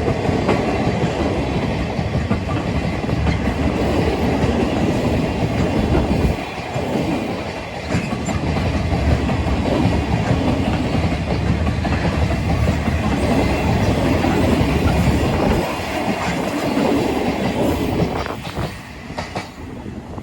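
Freight train of empty Taki cement tank wagons rolling past: a steady rumble of steel wheels with clickety-clack over the rail joints, easing off briefly partway through and fading near the end.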